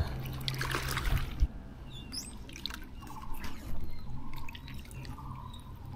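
Faint dripping and light splashing of water, with a short high chirp about two seconds in.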